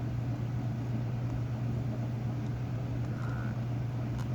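Steady low hum of a room appliance or motor running, with a faint click near the end.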